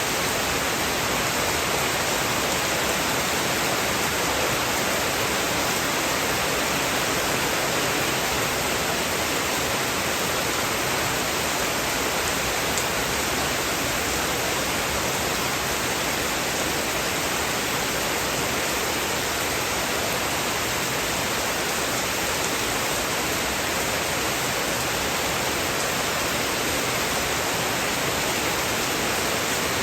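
Heavy rain falling in a steady, even hiss that does not change.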